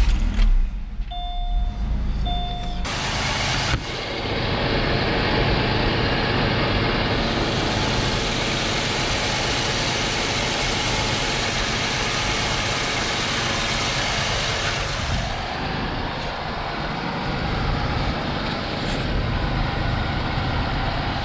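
A brief chime, then the 2004 Chevy Malibu's 3.5-litre V6 cranks and catches about three to four seconds in and settles into a steady idle. This is the engine's first start after an alternator replacement.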